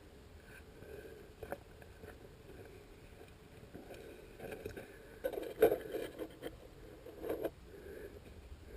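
Faint scraping and knocking sounds of handling and movement, a few short scuffs clustered in the second half.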